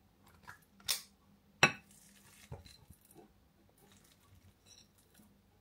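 Stainless steel ice cream scoop clinking against a glass mixing bowl and a ceramic dish while portioning raw meatball mixture. Two sharp clinks come about a second in, the second one the loudest, followed by a few lighter taps and clicks.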